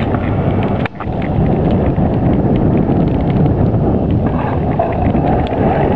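Wind rumbling heavily on the microphone outdoors in a snowstorm, loud and steady, with a brief drop about a second in.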